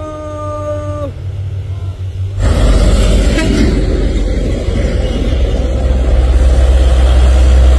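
Hino truck's diesel engine running loud and steady under load as it pulls a loaded lowbed trailer uphill, starting abruptly about two and a half seconds in. Before it, a steady pitched tone sounds until about a second in.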